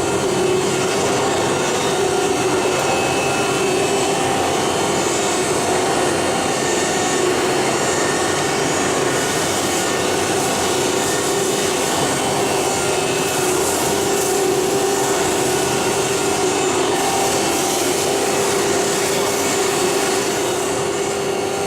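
Nesting CNC router cutting wood-based furniture panel, a steady machining noise with a constant whine from the spindle.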